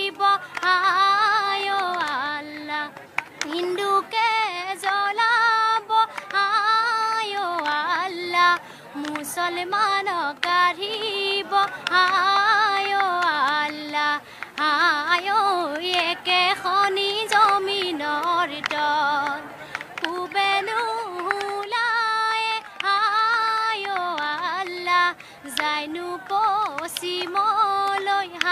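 A young woman's voice singing an Assamese zikir, a Muslim devotional song, as a single melodic line. It comes in short phrases of held, wavering, ornamented notes with brief breaks between them.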